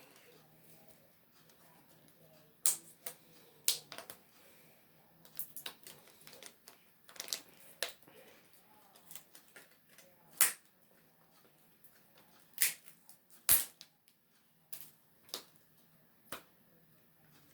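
Irregular sharp plastic clicks and snaps, about fifteen of them, from a Blu-ray case being handled as its discs are popped off and pressed back onto the hubs.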